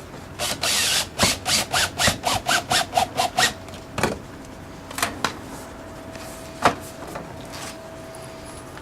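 Cordless drill driving a 1/2-inch screw through the metal downpipe into the leaf catcher: a brief run, then about two seconds of quick rapid strokes, followed by a few separate knocks against the pipe.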